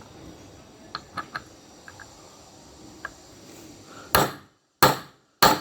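Hammer blows driving a wheel bearing into a scooter's front wheel hub: a few light taps and clinks, then three loud, sharp strikes about half a second apart near the end. The change in the sound of the blows shows the bearing is fully seated.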